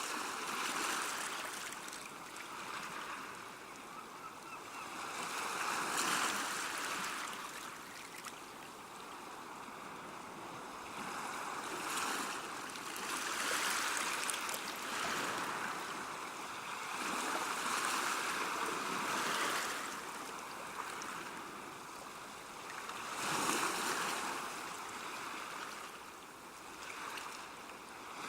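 Small sea waves washing onto the shore, each wash swelling and receding every few seconds over a steady hiss of water.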